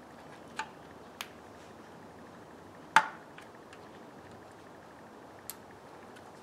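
Hard clicks and clinks as screws and small parts are handled at the engine's oil pump and plastic baffle plate: four separate ones, the loudest about three seconds in, with a few fainter ticks between.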